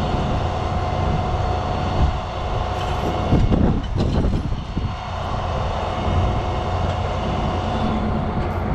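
Diesel engine of a heavy rotator tow truck running steadily, with a steady whine over the rumble. It swells briefly about three and a half seconds in.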